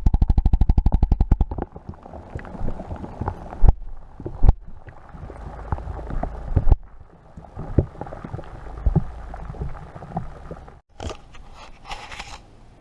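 Predator 212 single-cylinder engine running with a fast, even firing beat, then cutting off suddenly about a second and a half in. Scattered knocks and clunks follow.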